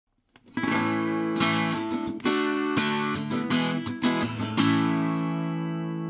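Acoustic guitar strumming a short run of chords, the last one left ringing and slowly fading.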